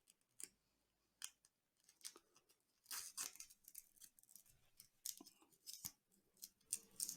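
Faint, scattered small clicks and rustles, about a dozen over several seconds, from cable straps being fastened around a microphone cable along a boom arm.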